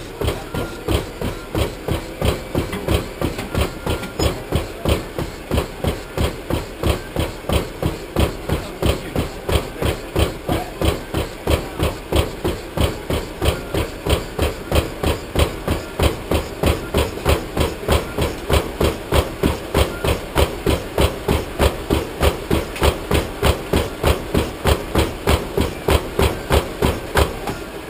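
A runner's footfalls striking a treadmill belt in an even rhythm of about three steps a second, over a steady hum from the treadmill. The footfalls stop near the end.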